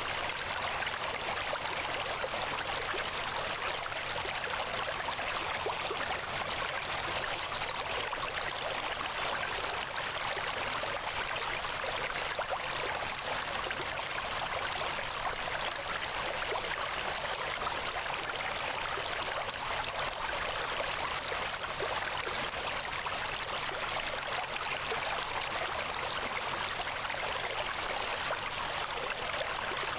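Steady, even rushing noise like flowing stream water, without any change or separate events.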